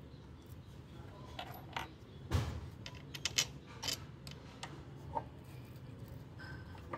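Irregular metallic clinks and knocks as a water pump's metal housing is handled and fitted against an electric motor's flange and shaft, the loudest knock a little over two seconds in, over a low steady hum.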